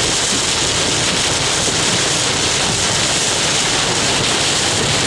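Heavy rain and wind in a severe thunderstorm: a steady, loud hiss.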